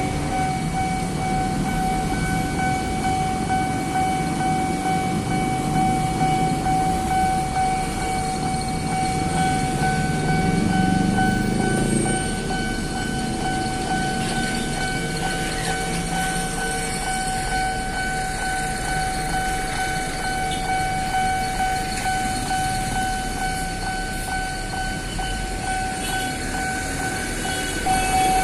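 An electric commuter train passing a railway level crossing, its rumble swelling about ten seconds in, while the crossing's warning signal sounds a steady tone.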